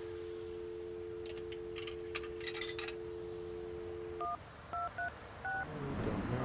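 Payphone dial tone, a steady two-note hum, that cuts off after about four seconds as four keypad touch-tones are pressed in quick succession. A few light clicks and rattles come between about one and three seconds in.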